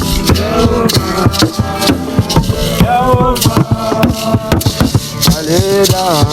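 Worship band music: a melody line that glides up and down in pitch over steady percussion strikes, with a shaker-like rattle.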